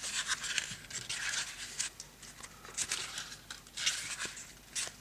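Paper pages of a CD's accompanying book being turned, a series of short papery swishes and rustles about once a second.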